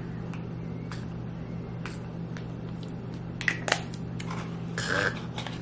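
A few short spritzes and clicks from a small bee propolis throat-spray pump bottle being sprayed into the mouth and handled, over a steady low hum. A short breathy rush comes near the end.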